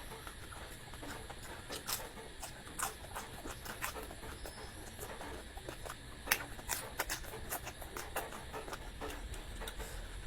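Close-miked eating sounds: a person chewing, with irregular wet clicks and smacks of the mouth, a few sharper ones about six to seven seconds in.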